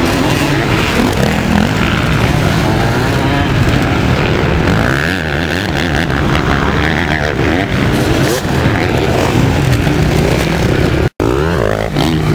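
Several vintage motocross motorcycles racing on a dirt track, their engines revving up and down as they climb and jump and overlapping one another. The sound cuts out for a moment about eleven seconds in.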